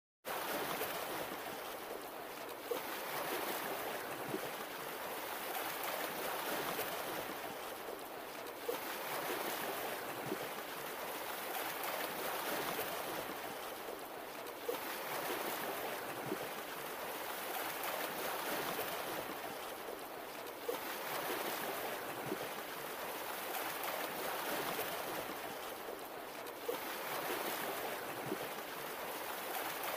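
Ocean surf washing onto a beach, a steady rush of waves that swells and ebbs about every six seconds.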